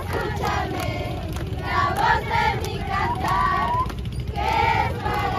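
A group of children's voices singing together in phrases, over a steady low rumble.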